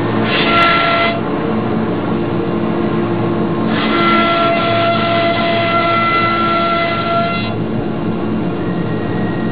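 A 1325 wood CNC router running with its dust collector: a loud, steady machine noise with a high whine that comes in briefly about half a second in and again for several seconds in the middle.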